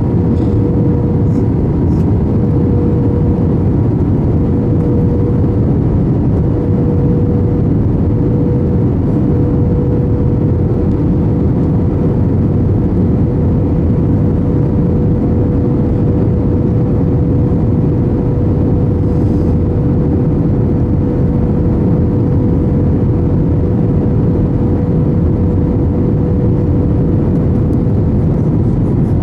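Airbus A321 cabin noise on approach: a loud, steady rush of airflow and jet engine noise, with a steady droning hum through it.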